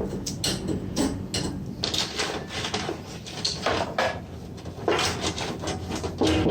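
Irregular clicks, taps and scraping of hard parts being handled and knocked together, over a faint steady low hum.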